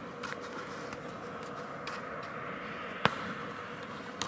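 A football kicked once with a single sharp thud about three seconds in, followed by a smaller tap near the end, over a steady background hum.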